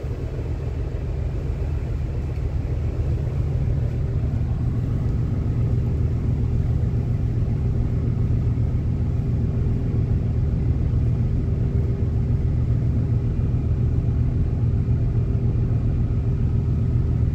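A ship's engine running, a steady low rumble with a faint steady hum above it, growing a little louder over the first few seconds.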